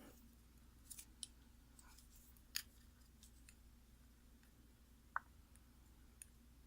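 Faint, sparse clicks and taps of small metal lock parts and tools being handled while a pin-tumbler lock is taken apart, with one short ringing tick about five seconds in.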